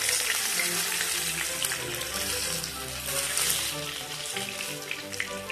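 Whole karimeen (pearl spot fish) sizzling in hot oil in a frying pan as it is lifted with a spatula, the sizzle dying down near the end, over background music.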